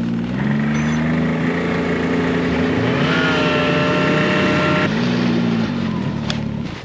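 Snowmobile engine running and pulling away. Its pitch rises as it speeds up shortly after the start and again about three seconds in, falls back around five seconds in, then cuts off just before the end.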